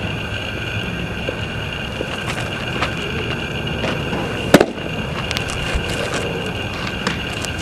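A pitched baseball smacking into a catcher's mitt once, a single sharp pop about four and a half seconds in, over a steady outdoor hiss with a few faint small clicks.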